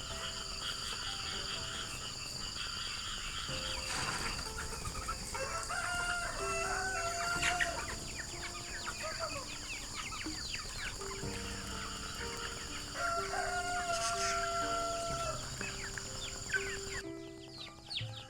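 A rooster crowing twice, each crow a long call of about two seconds, one a third of the way in and one about two-thirds through, over soft background music.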